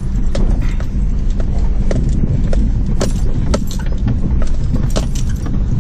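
Four-wheel drive heard from inside the cab, its engine running with a steady low rumble while the body and interior give off many irregular rattles and knocks as it rolls slowly over a rough bush track.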